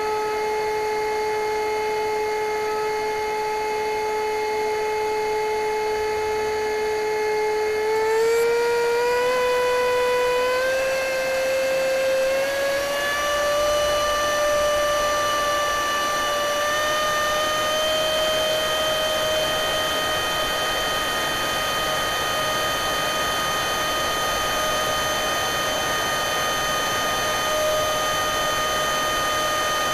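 Electric ducted fan of a foam RC F-16 jet model, heard from its onboard cockpit camera, whining steadily. About eight seconds in its pitch climbs in small steps for some ten seconds as the fan speeds up, then holds at the higher pitch.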